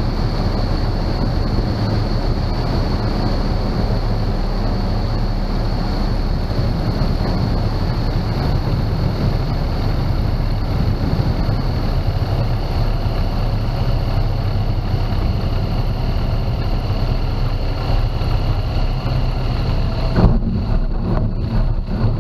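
Aeroprakt A22L2 ultralight's piston engine and propeller running steadily with airflow noise during the landing; a single knock about two seconds before the end, after which the rushing hiss drops off.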